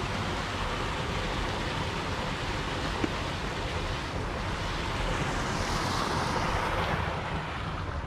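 Wind buffeting the camera microphone: a steady rushing noise with an unsteady low rumble, and one small click about three seconds in.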